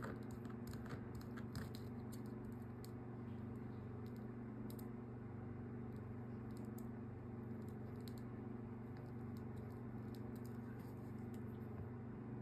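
Faint scattered clicks and light handling of craft materials over a steady low background hum.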